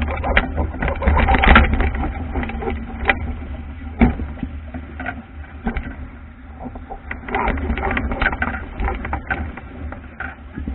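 Wind buffeting the microphone over water splashing and slapping against the hull of an Albacore sailing dinghy beating through choppy waves, with spray hissing off the bow. The splashing comes in louder spells in the first couple of seconds and again about seven to nine seconds in.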